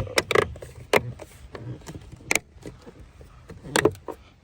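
Hard plastic clicks and knocks of a gloss-black M3-style mirror cap being pressed and snapped onto a car's side-mirror housing. There are several separate sharp clicks: a cluster at the start, one about a second in, one a little past two seconds and one near the end.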